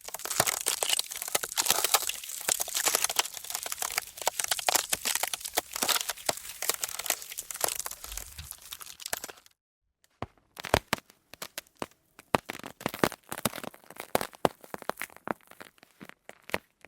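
Ice cracking: a dense run of sharp cracks and crackling for the first half, which stops abruptly, then after a short gap sparser, separate snaps.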